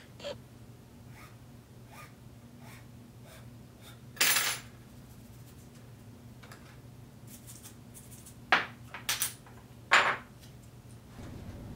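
Small tools and objects handled on a workbench: scattered light clicks and clinks, with a few short, louder scraping bursts about four seconds in and again near nine to ten seconds, over a faint steady low hum.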